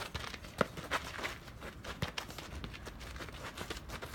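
Irregular sharp knocks and taps, a few a second, the loudest about half a second in, over a low background rumble.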